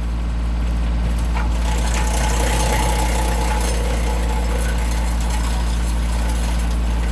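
John Deere 3005 tractor's diesel engine running steadily with a PTO-driven woodchipper spinning: a deep steady hum under a broad rushing noise, swelling in over the first second.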